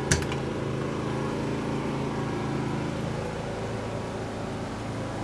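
Steady droning hum of running machinery, with one sharp click just after the start.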